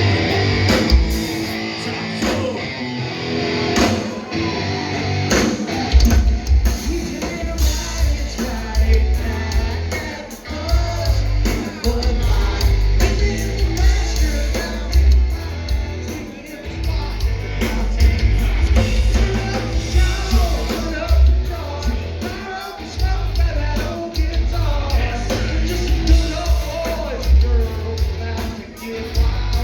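Loud live concert music played through a PA system, with vocals over guitars and a heavy bass beat that kicks in about six seconds in.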